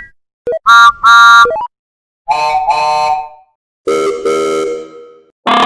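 Train whistle and horn sound effects: pairs of short toots, each pair lower in pitch than the pair before.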